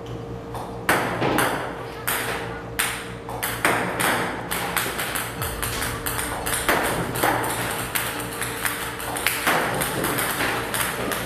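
A series of sharp taps or pings, irregular, about two or three a second, over a steady low hum.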